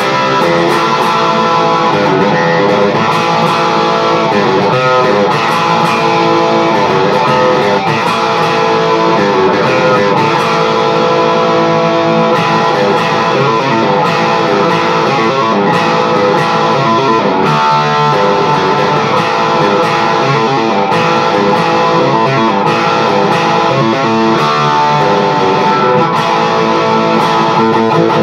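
BC Rich Legacy B electric guitar played without a break through a Mesa Boogie Badlander amp on its crunch setting, from the bridge humbucker, giving a crunchy overdriven tone.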